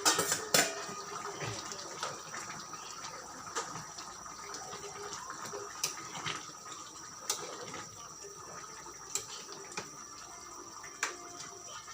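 Chicken and fresh-tomato stew simmering in a pot, a steady bubbling hiss, with a few sharp clicks scattered through it.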